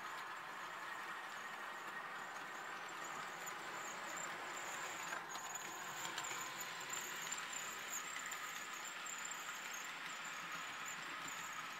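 Model trains running on the layout: a steady rolling hiss of small wheels on the track with a thin, high-pitched whine over it and a few faint clicks about five to six seconds in.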